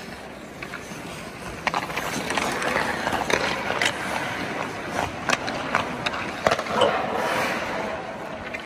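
Hockey skate blades carving and scraping across the ice, getting louder from about two seconds in as the skater comes close, with several sharp clacks of stick on puck.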